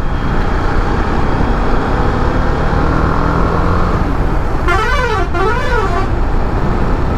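Steady wind and road rush of a TVS Apache RR310 motorcycle riding at highway speed. About five seconds in, a vehicle's warbling musical horn sounds for about a second and a half, its pitch rising and falling twice.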